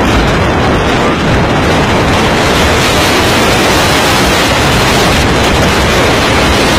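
Loud, steady roar of strong wind buffeting the microphone, mixed with rough sea.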